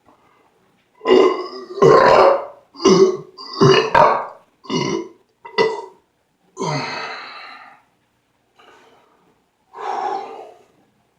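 A man belching loudly over and over, about eight belches in quick succession, the one near seven seconds longer and trailing off, then one more near the end.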